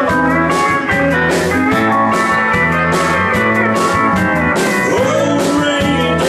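Live country band playing: Telecaster-style electric guitars over bass and a steady drum beat.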